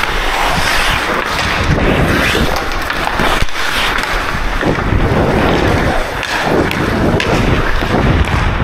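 Ice hockey skates scraping and carving on the ice during play, with wind rushing over the action camera's microphone and a few sharp knocks of stick and puck.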